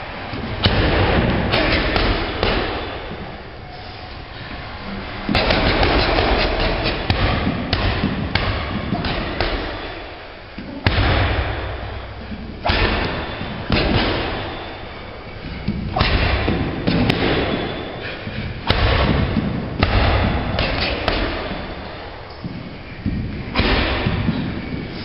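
Gloved strikes landing on a hanging heavy punching bag: a string of dull, irregular thuds a few seconds apart, each ringing on in an echoing hall.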